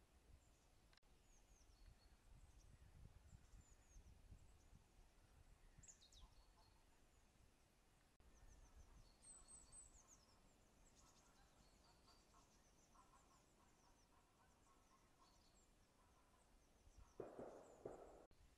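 Near silence outdoors, with faint, scattered high chirps of small songbirds over a low rumble of wind. A brief, louder rustling noise comes near the end.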